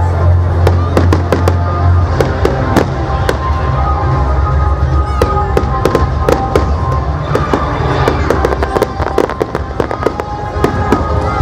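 Fireworks display: rapid volleys of bangs and crackling, many in each second, over music with a heavy bass line.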